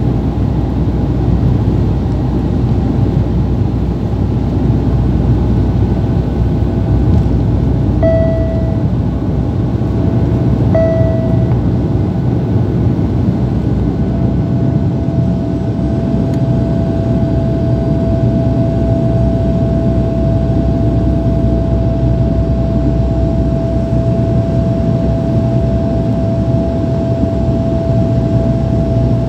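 Cabin noise of a Dash 8 turboprop airliner on approach: a steady, loud drone of engines and propellers. A whine sounds briefly twice, then holds steady from about halfway through.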